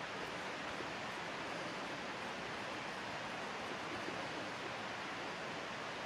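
A steady, even hiss with nothing else standing out.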